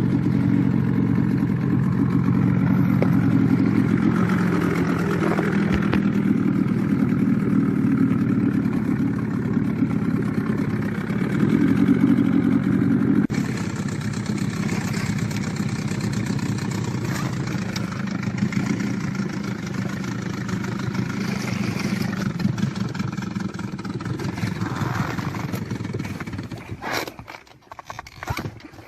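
Small boat's motor running steadily under way, with water noise; the sound changes abruptly about halfway through, and near the end the motor dies away, leaving a few sharp knocks.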